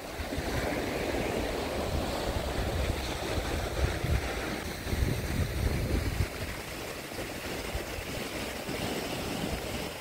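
Black Sea waves washing onto a sandy shore and rocks, with wind rumbling on the microphone, heavier over the first half.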